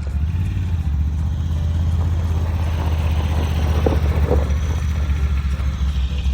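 All-terrain vehicle engine running steadily with a loud low rumble.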